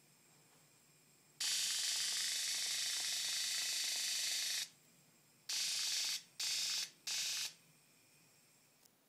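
A stun gun's crackling electric discharge sound, a recorded sound effect played through an iPhone's speaker by a stun-gun app: one long burst of about three seconds, then three short bursts in quick succession.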